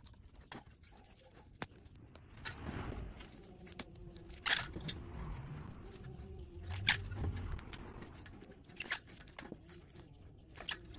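Nuetech TUbliss adhesive rim tape being pulled off its roll and pressed by hand onto a spoked motorcycle wheel rim: quiet rubbing and crackling of the tape, with a few sharp clicks.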